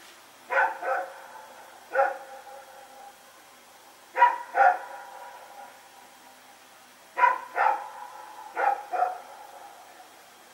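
A dog barking in four short bouts of one or two barks each, nine barks in all, each bark trailing off in an echo.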